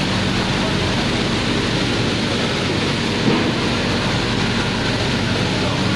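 Magnetic destoner running: a steady, loud mechanical rush of machine noise, with one small knock about three seconds in.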